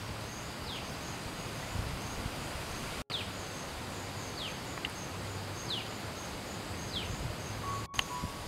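Rural outdoor ambience: insects keep up a steady high pulsing trill while a bird repeats a short falling whistle about once a second. The sound cuts out briefly about three seconds in.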